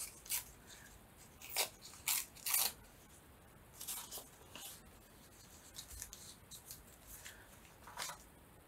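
Crumpled packing paper being torn by hand: several short rips, most of them in the first three seconds and one more near the end.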